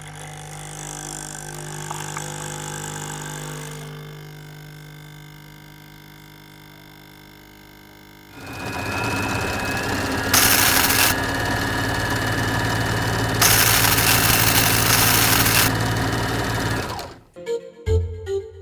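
Robot foley sound effects: a steady mechanical hum of several stacked tones, then a louder machine-like running with two bursts of hiss, the second longer. It cuts off about a second before the end.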